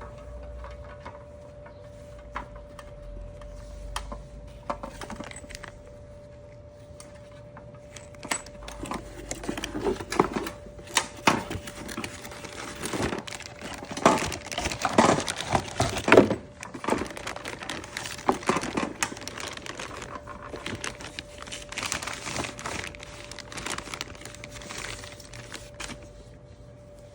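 Hand work on parts and tools: irregular clicks, knocks and light metallic rattles with some crinkling, busiest in the middle, over a steady hum with a single pitch.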